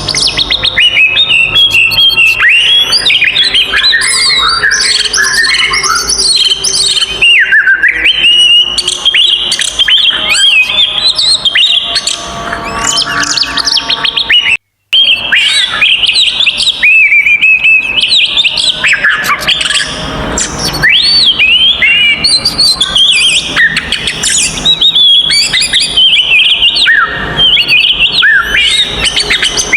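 Oriental magpie-robin (kacer) singing a loud, fast, continuous song of varied whistles, rising and falling glides and chirps: the agitated fighting song of a male. The sound cuts out completely for a moment about halfway through, then resumes.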